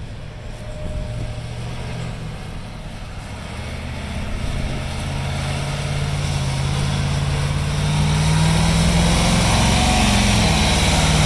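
Scammell Nubian Mk10E airfield fire tender's turbocharged Cummins V903 V8 diesel running as the truck drives past, growing steadily louder as it approaches, with tyre hiss on the wet tarmac. The engine note drops slightly as it passes near the end.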